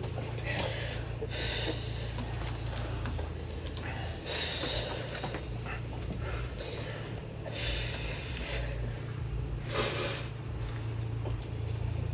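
Short noisy breaths and snorts through the nose, about five spread a second or two apart, over a steady low hum.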